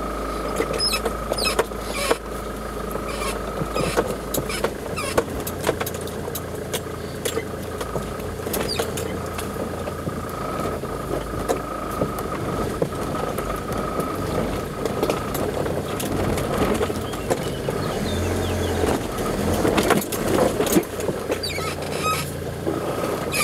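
Off-road 4x4's engine running at a crawl, with many sharp cracks, snaps and scrapes from branches rubbing and breaking against the bodywork as it pushes through dense brush.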